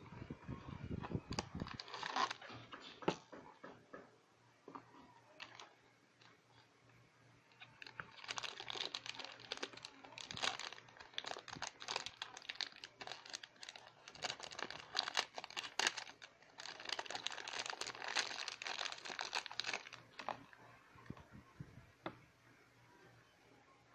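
Crinkly packaging handled and torn open by hand, in several bouts of rustling and crackling with sharp clicks, and a quieter pause between them.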